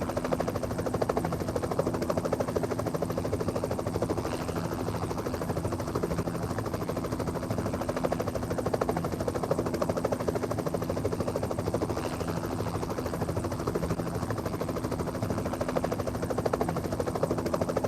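Steady mechanical drone with a fast, even pulsing over a constant low hum, unchanged throughout.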